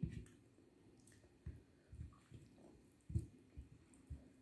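Faint, wet eating sounds of rice and egg curry eaten by hand: about seven short, soft squelches spaced irregularly.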